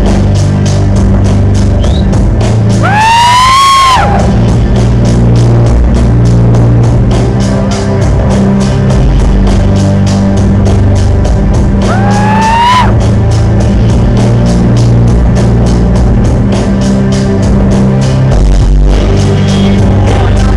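Loud music with a heavy bass line and a steady, fast beat, with a swooping tone that rises and then holds, twice.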